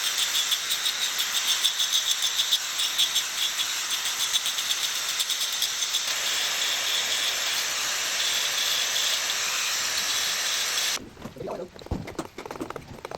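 Power tool grinding stone, a steady harsh hiss with a whine in it, which cuts off abruptly about 11 seconds in; fainter irregular knocks and scrapes follow.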